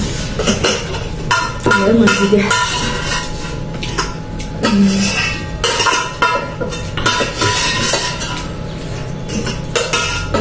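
Spoons and forks clinking and scraping against metal bowls as two people eat noodles, in many short irregular clicks, with a faint steady hum underneath.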